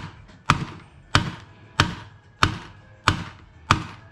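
A steady series of sharp knocks, about one and a half a second, each with a short ringing tail.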